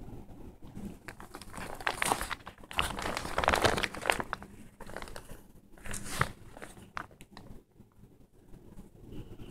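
Praying mantis chewing through the shell of a live Dubia roach: an irregular run of crisp crackles and crunches, loudest about three to four seconds in.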